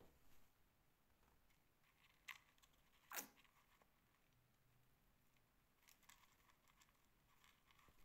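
Near silence with faint crackling: a pet mouse nibbling seed mix in its feeder. There are two brief sharp clicks, the louder one a little after three seconds in.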